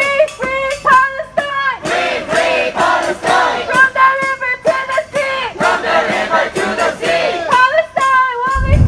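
A crowd of protesters chanting slogans together in unison, in a loud, steady rhythm of short shouted phrases.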